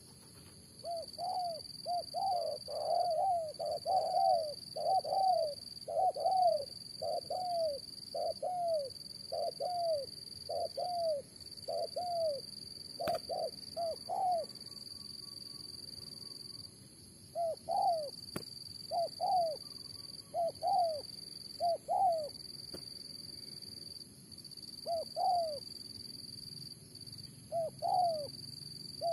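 Spotted doves cooing: a long run of evenly spaced, arching coos, then shorter groups of coos with pauses between them. A steady insect drone sounds on and off behind them.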